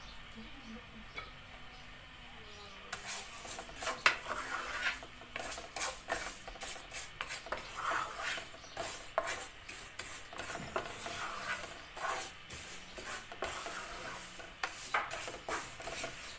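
Vermicelli toasting in hot olive oil in a pot, sizzling, while a spoon stirs it and scrapes and knocks against the pot. The stirring starts about three seconds in, with a sharp knock about a second later.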